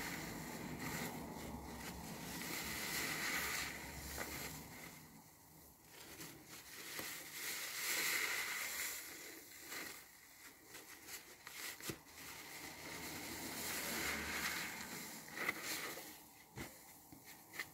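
Soapy car sponge squeezed and wrung by hand in thick lather: wet squelching that swells every few seconds, with crackling foam and a few sharp pops near the end.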